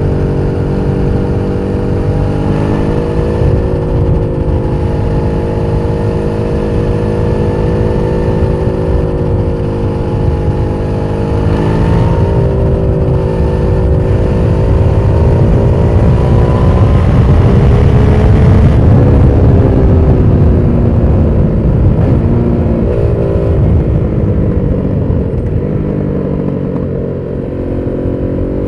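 Aprilia SXV550 supermoto's V-twin engine under way. Its note climbs in pitch and grows louder toward the middle, falls off as the throttle closes, then rises again near the end.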